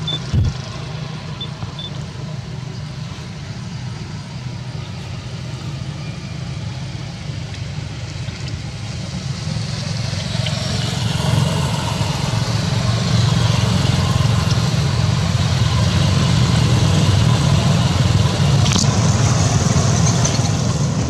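Steady low rumble of a motor vehicle's engine, growing louder about halfway through and staying loud. There is a sharp knock just after the start and another near the end.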